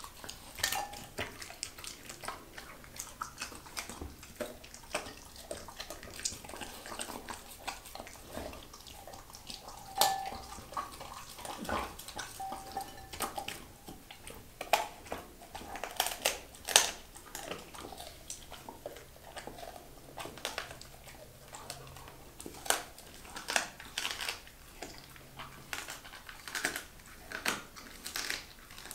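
Dog eating raw turkey and sardine from a bowl: irregular biting, chewing and crunching, some crunches sharper and louder than others.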